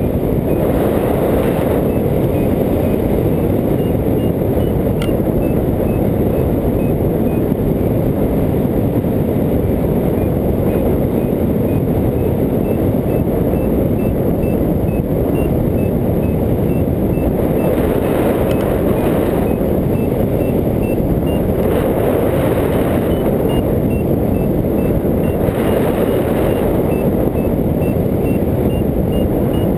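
Steady rush of wind over the microphone of a hang glider in flight, with a variometer beeping in short runs of quick beeps that step up and down in pitch, the climb tone of a glider rising in a thermal.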